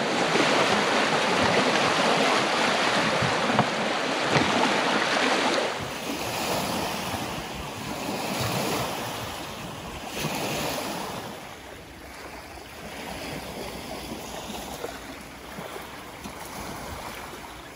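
Small wind-driven waves breaking and washing over a shingle lake shore, with wind on the microphone. Loudest for the first six seconds, then softer with a couple of surges.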